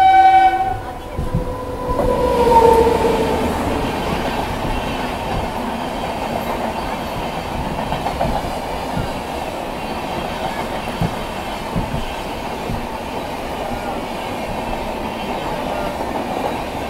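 A train horn blasts briefly at the start, and a second horn tone falls in pitch about two seconds in. This is followed by the steady rumble of a moving passenger coach, with occasional wheel clicks and knocks over rail joints.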